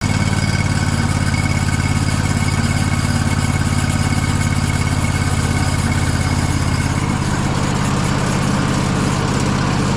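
Band sawmill's engine running steadily with an even low pulse, easing slightly about seven seconds in.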